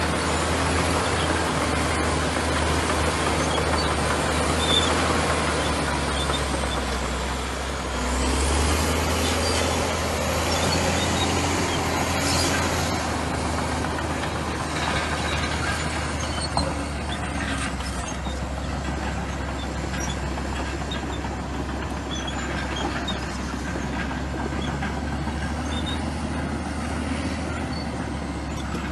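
Komatsu bulldozer's diesel engine working steadily, briefly louder about eight seconds in.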